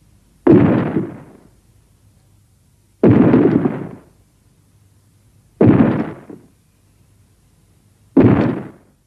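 Four sudden explosion-like booms from a kaiju-film sound effect, each dying away over about a second, repeated about every two and a half seconds.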